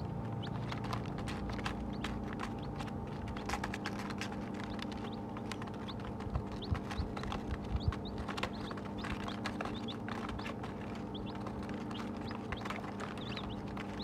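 Baby chicks cheeping with short high peeps while pecking at feed on paper, with many light tapping ticks and a few louder knocks around the middle. A steady low hum runs underneath.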